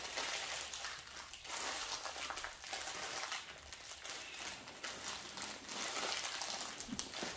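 Plastic bag of cake mix crinkling and rustling in a rapid run of small crackles as hands twist and pull at it, trying and failing to tear it open.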